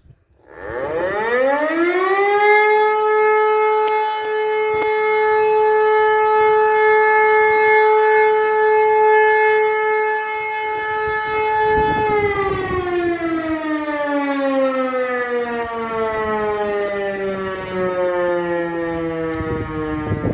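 E57 electromechanical motor siren sounding a test alarm: it winds up to a steady wailing tone within about two seconds, holds it for roughly ten seconds, then winds down with a slowly falling pitch as the rotor coasts.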